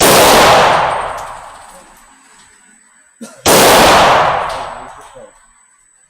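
Two 9mm pistol shots about three and a half seconds apart, each very loud and followed by a long echoing tail.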